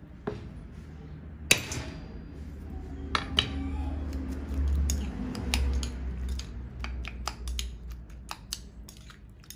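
A cleaver knocks once sharply on a wooden chopping block. Then a metal spoon stirs a ceramic bowl of chopped ingredients and sauce, with repeated small clinks against the bowl's rim and sides.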